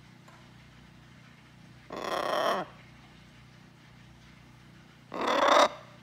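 Blue-and-gold macaw calling twice, loudly: a call about two seconds in and a shorter, louder one near the end.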